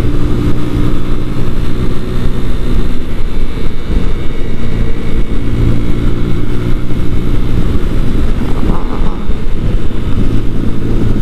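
A Sinnis Akuma 125cc motorcycle's engine running at a steady cruising speed, with heavy wind rumble on the on-bike microphone.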